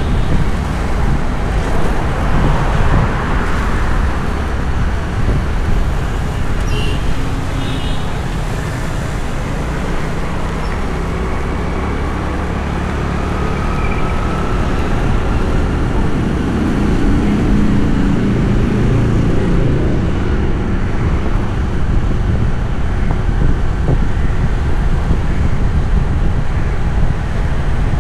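City street traffic heard during a drive: a steady rumble of engines and tyres on the road, swelling louder for a few seconds past the middle as a vehicle passes close.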